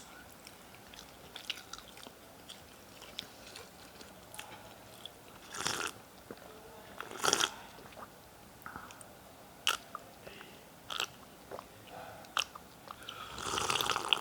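Crispy coated KFC Spicy Lime fried chicken being bitten and chewed up close, with sharp crunches every second or two and a louder crunch near the end.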